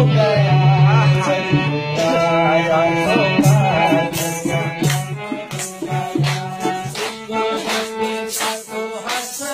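Harmonium playing a melodic interlude over a held low drone. From about four seconds in, a steady beat of sharp strikes joins, a little under two a second.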